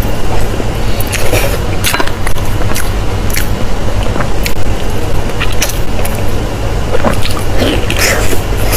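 Close-miked wet chewing and mouth smacking on pork intestine and sausage, many irregular crackly clicks over a steady low hum.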